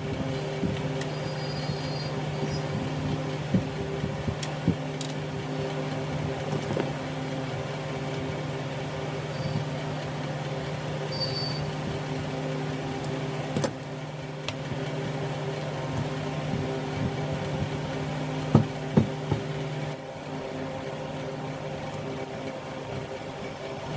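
A steady mechanical hum, with short clicks and knocks now and then, and two sharper knocks close together near the end.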